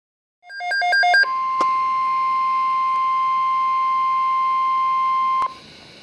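A NOAA Weather Radio receiver's speaker plays a quick run of beeping pips, then the steady 1050 Hz weather-radio warning alarm tone. The tone holds for about four seconds and cuts off with a click, leaving the receiver's low hiss. The tone signals an emergency alert, here a tornado watch.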